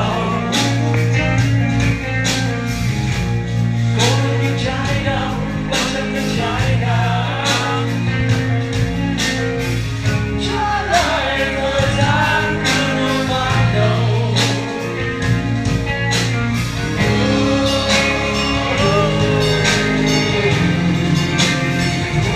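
Rock band playing live: a lead singer over electric guitars, bass and drums, with regular drum hits and a vocal line that slides in pitch, recorded from the audience.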